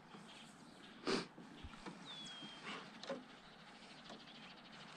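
Quiet riverside evening ambience: a bird's thin whistle sliding down in pitch about two seconds in, and a brief swish about a second in, the loudest moment.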